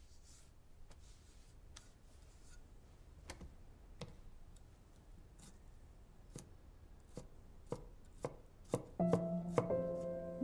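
Kitchen knife chopping on a cutting board in irregular single strokes that come closer together near the end, when background music comes in.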